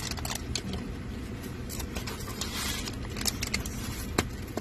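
Unboxing of small accessories: plastic wrapping and packaging rustling, with small items clicking and scraping against cardboard boxes, a brief crinkle about halfway and a sharp click near the end, over a steady low hum.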